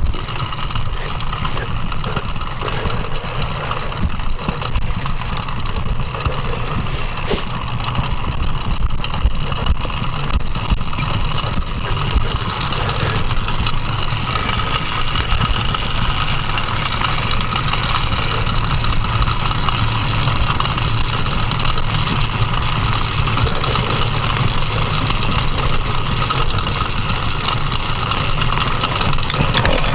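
Small 66cc two-stroke motorized-bicycle engine idling steadily while the bike coasts downhill.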